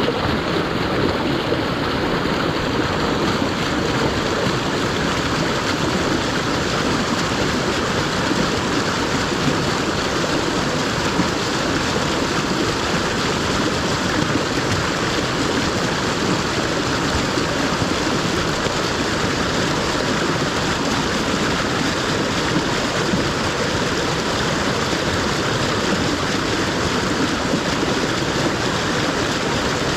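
Waterfall rushing: a steady, loud roar of falling water with no change.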